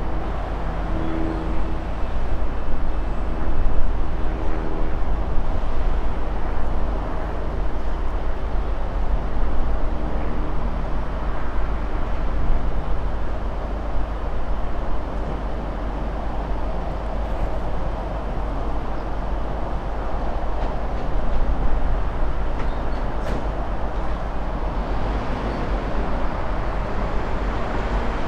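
Class 70 diesel locomotive running light and approaching, its GE PowerHaul V16 engine giving a steady deep rumble. The engine note is clearest in the first half.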